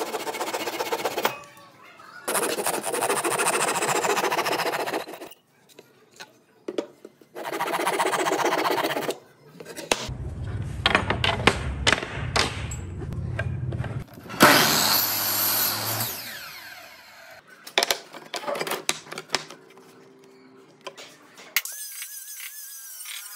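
Japanese-style pull saw cutting a pine strip in three bouts of rapid strokes, followed by wooden strips knocking and clattering on the workbench. Near the end a small angle grinder fitted with a sanding disc runs with a steady whine.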